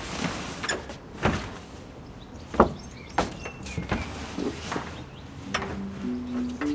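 A string of knocks and clunks from the shipping-container camera's doors and metal fittings being handled, the loudest a sharp knock about two and a half seconds in. Music with held notes comes in near the end.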